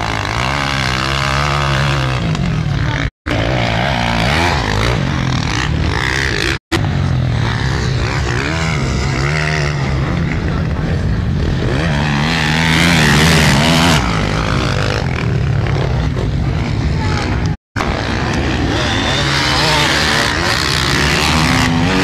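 Motocross motorcycle engines revving as the bikes race over the dirt track, their pitch rising and falling again and again, loudest about twelve seconds in as the bikes take a jump. The sound cuts out briefly three times.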